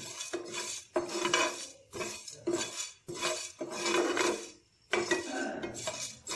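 Steel spoon stirring and scraping whole coriander seeds, peppercorns and cumin as they roast dry in a non-stick pan: uneven scraping strokes, one or two a second.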